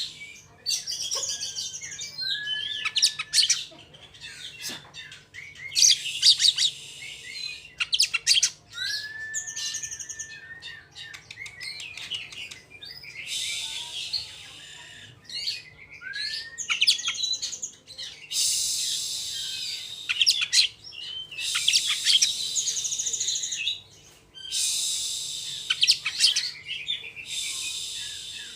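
Oriental magpie-robin (kacer) singing a fast, rolling challenge song: repeated bursts of rapid trills and clicks broken by short pauses, with a few clear whistled notes.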